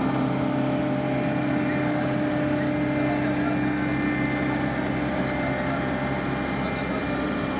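A motor engine running steadily, a constant drone with a few held tones that does not rise or fall.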